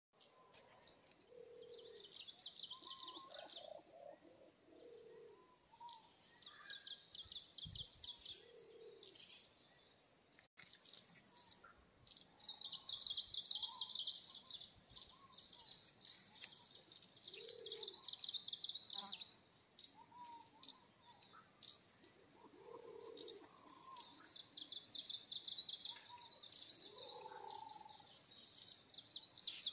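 Birds calling and chirping, with a buzzy high trill that comes in bursts of two or three seconds and shorter lower calls in between.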